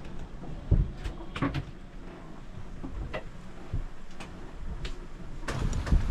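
Scattered knocks and clunks over a steady low rumble inside a sailboat's cabin underway, the loudest knock less than a second in and several more close together near the end.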